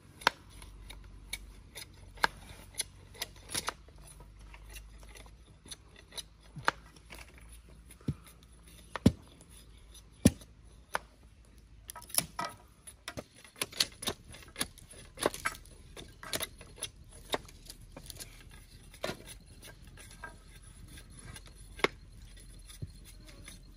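Irregular sharp knocks and clicks from hand-tool work on wood and bamboo, with the loudest knocks about nine and ten seconds in.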